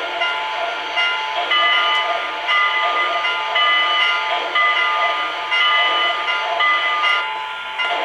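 O-gauge model steam locomotive's electronic sound system running: a steady steam hiss with repeated short whistle tones.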